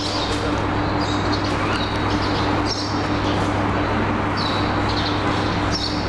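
Birds chirping: short high calls repeating every second or two over a steady hum and constant background noise.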